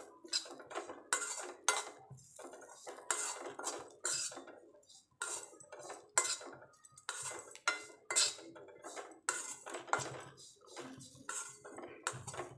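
A steel spoon repeatedly scrapes and knocks against an aluminium kadai while onions and a coarse ground spice mix are stir-fried. The strokes are irregular, about one or two a second.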